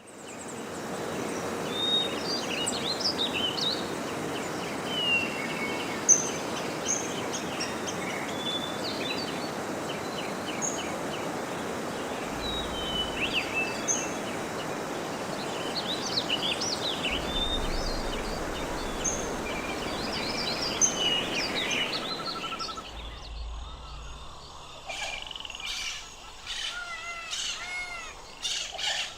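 Many birds chirping and calling over a steady background hiss. About 22 seconds in the hiss drops away, leaving a few sharp clicks and some warbling calls.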